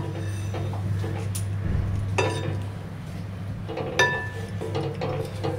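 Wooden spatula stirring a thick tomato masala gravy in a steel kadhai, knocking against the pan twice with a short metallic ring, about two and four seconds in, over a steady low hum.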